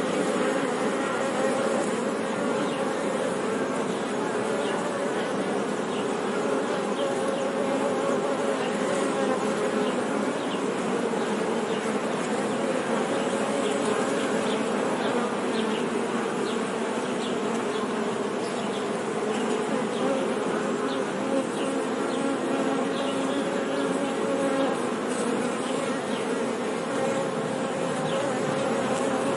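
Honey bees buzzing together in a steady, dense hum, several wavering tones overlapping.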